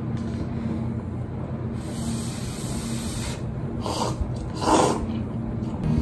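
A person slurping instant cup noodles: a long hiss, then two short slurps about four and five seconds in, the second the loudest, over a steady low hum.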